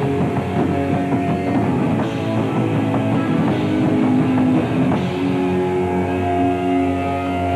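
Live rock band playing loud, with electric guitar over a drum kit. About five seconds in, the drumming thins out and the guitar holds long ringing notes.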